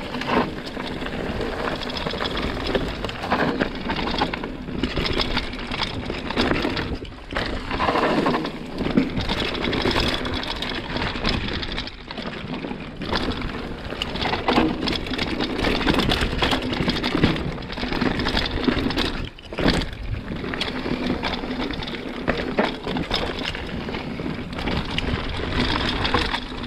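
Hardtail mountain bike ridden along a dirt trail: steady tyre noise over the ground with many small rattles and knocks from the bike.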